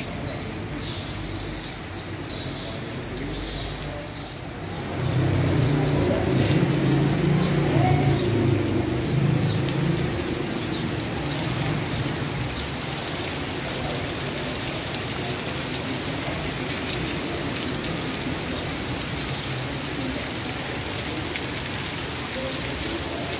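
Heavy rain falling steadily on a cobbled street and a canvas awning overhead. A louder low rumble joins it for several seconds about five seconds in, then fades back into the rain.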